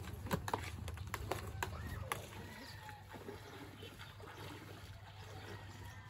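Hands working in a plastic basin of water, sloshing and splashing with small clicks and knocks, for about two seconds. The sound then drops to faint outdoor background.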